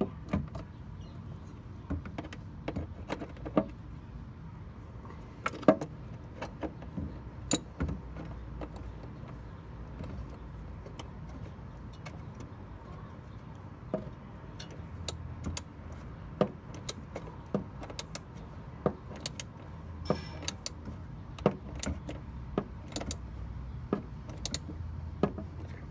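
Sharp metallic clicks and taps of a socket wrench working the terminal screws of a new electronic voltage regulator, coming irregularly and more often in the second half, at times several a second, over a steady low background noise.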